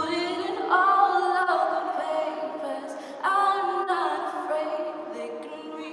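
Voices singing a cappella in harmony, holding long notes, with new chords coming in about a second in and again about three seconds in.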